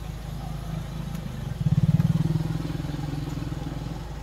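A motor vehicle engine running with a low, pulsing note. It grows louder about a second and a half in, then eases back a little and holds steady.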